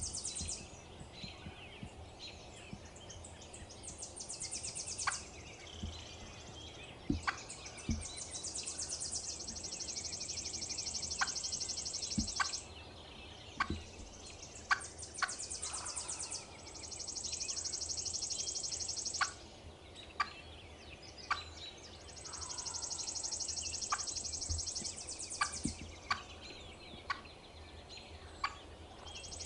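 Young wild hen turkey giving scattered single clucks, short sharp notes a second or more apart. A high, fast-pulsed trill repeats in bursts of a few seconds behind them.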